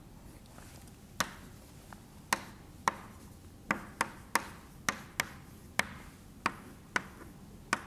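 Chalk tapping against a blackboard while diagrams are drawn: about a dozen sharp taps at irregular spacing.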